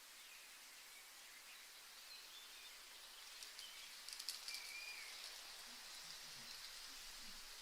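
Faint nature ambience: a steady high hiss with a few scattered bird chirps, and a short run of sharp ticks about halfway through.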